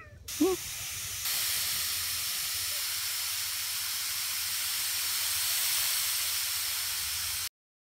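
Water spraying with a steady hiss that gets louder about a second in and cuts off suddenly near the end. A short cat meow comes just before the spray.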